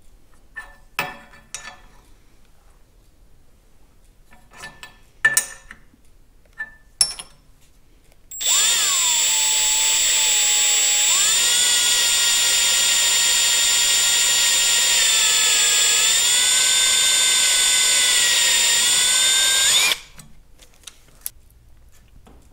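Handheld power drill drilling out a broken brass carburetor jet: a few light clicks and taps, then about eight seconds in the drill runs steadily for some eleven seconds. Its whine drops in pitch as the bit bites into the brass, picks back up, dips once more and cuts off suddenly.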